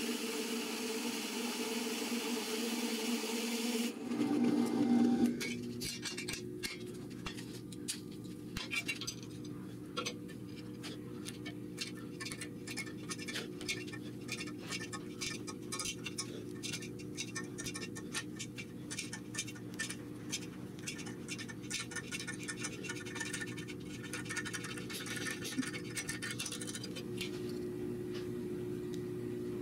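Drill press running a hole saw through a steel plate for the first few seconds. Then a long stretch of fast, irregular crackling over a steady hum, the sound of arc welding the plate.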